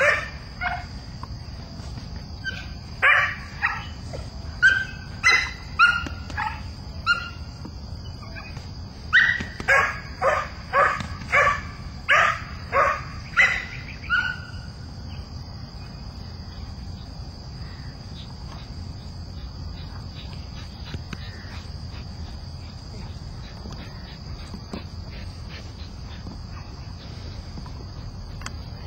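Young Belgian Malinois barking at a decoy in quick runs of sharp barks, about two a second, stopping about halfway through. It is a friendly prey bark rather than an aggressive one, in the trainer's words "too friendly".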